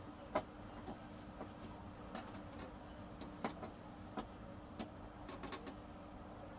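Scattered light clicks and taps, irregular and about one or two a second, from parts being handled while a monitor stand is assembled, over a faint steady hum.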